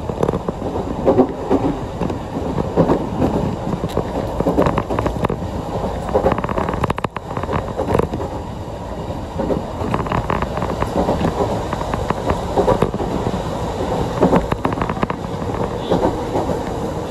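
Chikuho Electric Railway 3000-series train running between stations, heard from inside the car: a steady rumble of wheels on rail with frequent irregular clicks and knocks.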